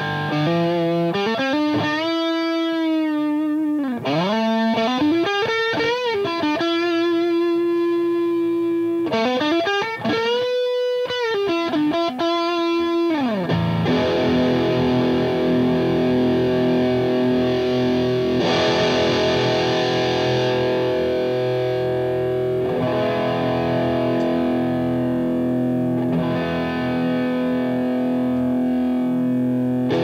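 Electric guitar, a Fender Stratocaster on its bridge Lace Sensor Red pickup, played through an engaged Fender Hammertone Overdrive pedal into a Marshall JCM 800 amp. For the first dozen seconds or so it plays a distorted single-note lead with wide string bends, then switches to sustained, ringing chords.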